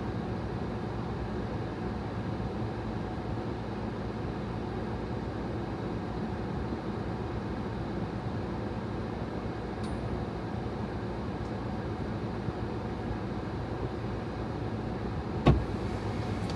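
Steady low hum of a vehicle idling, heard from inside the cab, with one sharp knock about fifteen seconds in.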